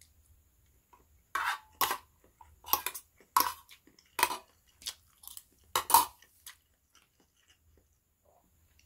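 Close-miked chewing of a mouthful of fried instant noodles: a run of short, irregular wet mouth sounds over a few seconds that stops about two-thirds of the way through.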